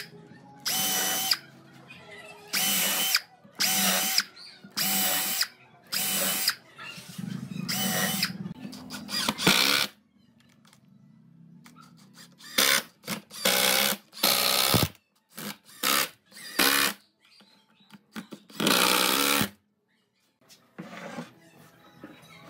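Cordless drill driving screws into pine: a string of short whirring bursts, each under a second, with a short pause near the middle before the bursts go on.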